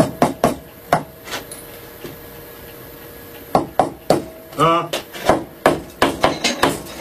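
Hammer strikes on a wood chisel cutting a recess for a nut into the wooden body of a plane: a few blows, a pause of about two seconds, then a run of blows that comes faster toward the end.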